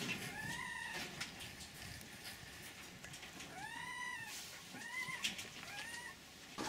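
Farmed foxes whining: four arched cries that rise and fall in pitch, one about half a second in and three close together in the second half, over scattered faint clicks.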